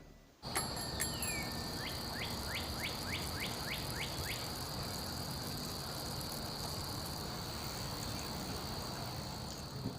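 Outdoor nature ambience: a steady high insect drone over a faint even hiss, with a run of quick chirps, about three a second, in the first few seconds.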